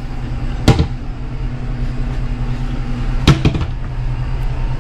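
Two sharp knocks from wooden cupboard doors being opened, under a second in and again about two and a half seconds later, over the steady low hum of the ship's machinery.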